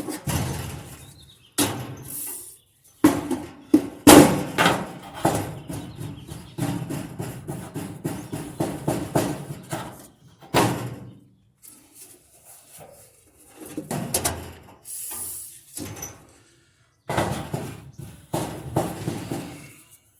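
Irregular knocks, clatter and scraping as dryer drum support parts are handled and fitted back by hand, with short pauses between bouts.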